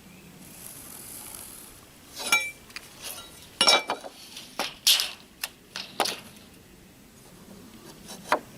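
A short hiss, then a quick run of sharp clicks and clinks over about four seconds, and one more near the end, as small hard objects are handled.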